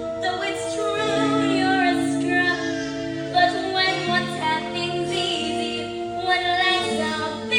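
A song from a stage musical: singing over instrumental accompaniment, with long held notes.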